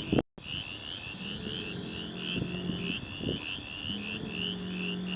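A chorus of frogs calling: short, high chirps repeating about three times a second, with a lower steady hum that comes in twice for a second or two. The sound drops out briefly just after the start.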